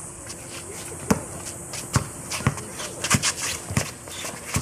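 Basketball dribbled on a concrete court: about five sharp bounces, unevenly spaced, with sneakers scuffing and shuffling on the concrete.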